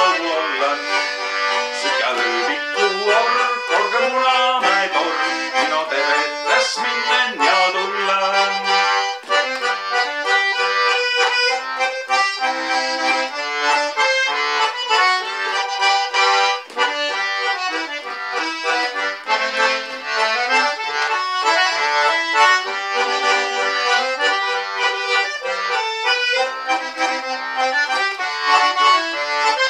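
Button concertina played solo: an instrumental passage of a folk tune, a melody over rhythmic pumped chords.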